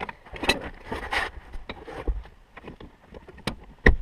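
Hand work on a car's interior seat-belt parts and ceiling trim: a rustling scrape for about a second, then scattered sharp clicks and knocks near the end as parts are pushed into place.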